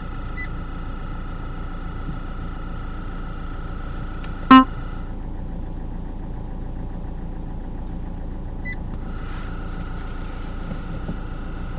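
Fiat Bravo II's Blue&Me hands-free system sounding a steady high-pitched whine through the car's speakers, an unwanted noise from the unit. About four and a half seconds in a short loud beep sounds; the whine drops out for about four seconds, then comes back, over a low cabin rumble.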